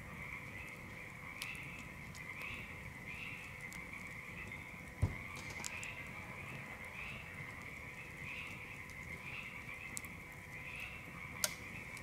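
A chorus of frogs calling steadily, a high trilling chorus that swells and fades about twice a second. Over it come a few sharp pops from the crackling campfire, and a single dull thump about five seconds in is the loudest sound.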